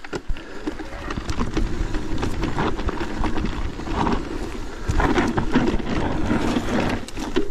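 Riding noise from a Merida eOne-Sixty electric mountain bike on a rough trail: wind rushing over the camera microphone, with frequent knocks, clicks and rattles from the bike and ground.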